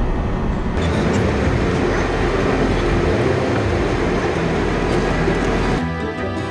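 Steady rushing noise of a car on the move, road and engine noise, turning brighter and hissier about a second in. Background music cuts in near the end.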